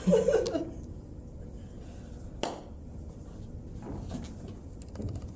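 A short burst of laughter, then a single sharp knock about two and a half seconds in, with faint rustling from bodies and plastic chairs moving.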